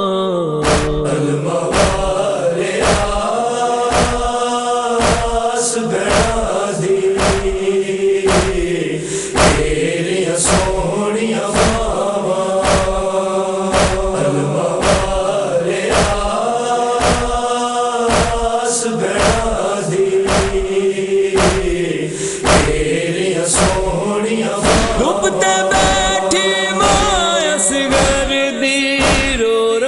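Noha lament chanted by a chorus of male voices in long, held notes, over a steady beat of about three strokes every two seconds.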